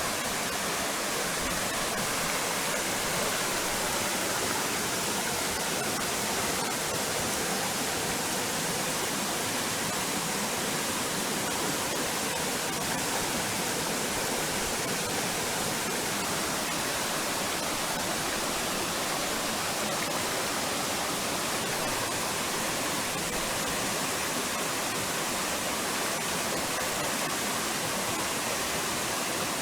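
River water rushing: a steady, even hiss with no breaks.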